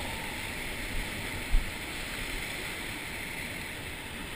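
Sea surf washing and breaking against rocks, a steady rush, with wind on the microphone and a single low thump about a second and a half in.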